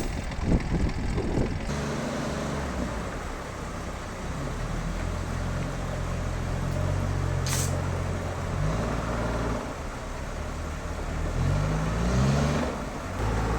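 A machine engine running with a steady hum, revving up briefly a few times. A short hiss comes about seven and a half seconds in. A rough, noisy sound cuts off just under two seconds in.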